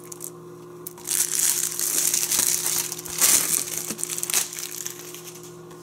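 Plastic shrink wrap being torn and peeled off a Blu-ray case, crinkling loudly from about a second in and dying down near the end.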